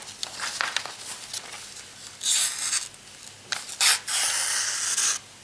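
Knife edge slicing through paper in a paper-cut sharpness test, with a few dry, rasping swishes. The loudest come a little past halfway and again near the end.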